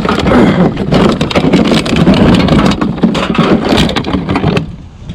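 Rummaging through a recycling bin: loud crackling and rustling of plastic packaging with many small knocks, dying away near the end.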